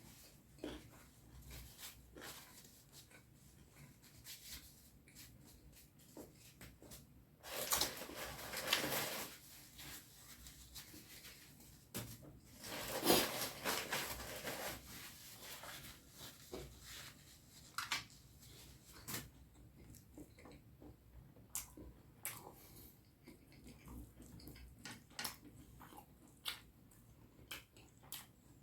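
Close-miked eating sounds from someone eating curry and rice: scattered small clicks and smacks of chewing, with two louder stretches about 8 and 13 seconds in.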